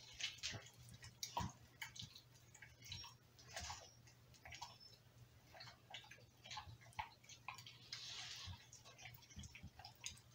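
Faint, irregular wet clicks and smacks of a pit bull licking and mouthing a chunk of raw meat. She is licking more than chewing, which the owner takes as a sign the meat has gone bad.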